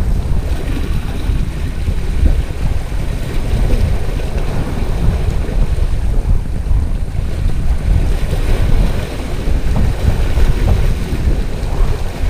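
Wind buffeting the microphone in a steady low rumble, with small waves washing and splashing against the rocks.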